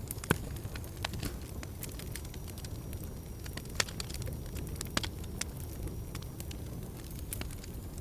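Fireplace fire crackling: irregular sharp pops and snaps over a steady low noise. The loudest pops come about a third of a second in and again near four and five seconds.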